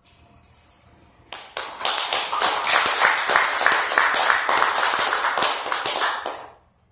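Small audience applauding, with one person clapping right beside the microphone. The applause starts about a second in, grows quickly, and dies away near the end.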